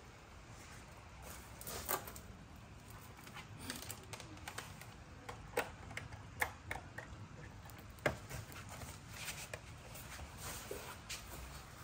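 Cables and plugs being handled and pushed into the sockets of a small electronics box: scattered small clicks and knocks with light rustling, the sharpest about eight seconds in.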